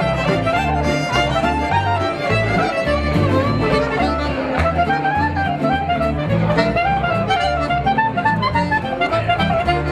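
Folk tune played by a small band with a diatonic button accordion: a quick melody moving over a bass line that changes notes to a steady beat.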